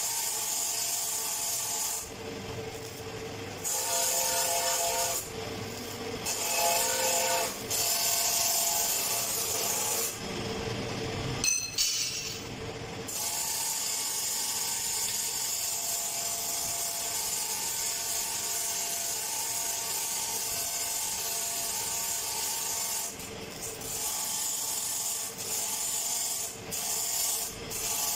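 Electric arc welding on steel pipe: a steady crackling hiss from the welding arc that stops and restarts a few times as the pipes are repositioned, with a sharp metal knock near the middle.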